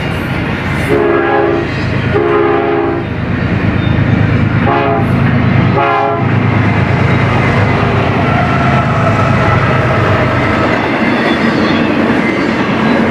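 A locomotive air horn sounds four times in the first half, two longer blasts and then two short ones. Underneath, a passing double-stack intermodal freight train rumbles and clatters steadily over the rails.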